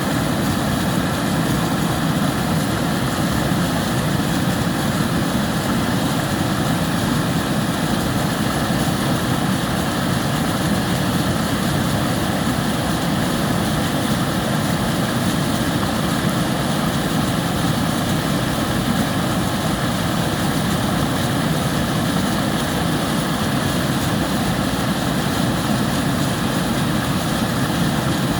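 River water flowing, a steady, even rushing noise without breaks.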